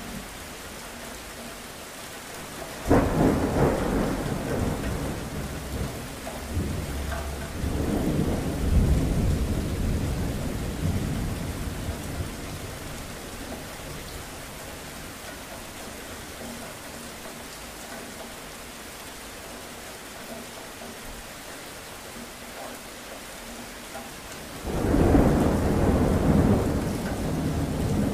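Thunderstorm: steady rain with thunder. A sudden crack about three seconds in rolls into a long rumble that swells again and dies away, and a second loud peal breaks out near the end.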